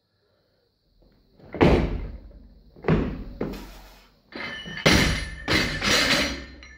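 Barbell clean and jerk with rubber bumper plates, about 115 kg: two heavy thuds of the feet and bar as the jerk is driven overhead and recovered. Then the bar is dropped from overhead and bounces several times on the floor, the plates banging with a metallic ring.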